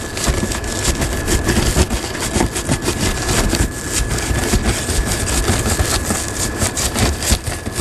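Crash axe blade sawing up and down through a laminated windshield: rapid, uneven scraping and crunching strokes through the glass layers. A thin steady whine runs underneath.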